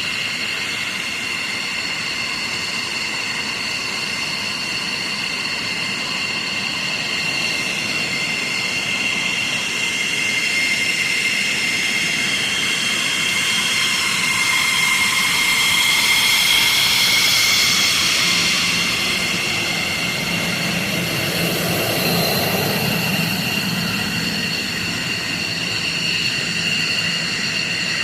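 Jet engine whine: several steady high tones over a rushing hiss, growing louder towards the middle and easing off again.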